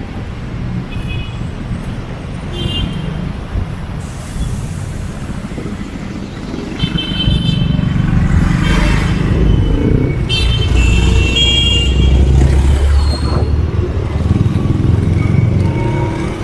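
Street traffic of motorcycles and cars running, with a motor scooter passing close so that the engine rumble swells from about seven seconds in to near the end. A few short high horn beeps sound through it.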